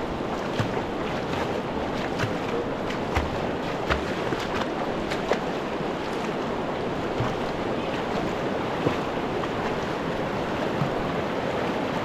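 Rushing mountain river water, a steady rush, with scattered light clicks and knocks.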